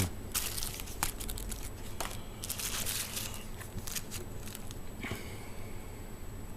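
Paper and stickers being handled and shuffled, crinkling, with a few light clicks and taps.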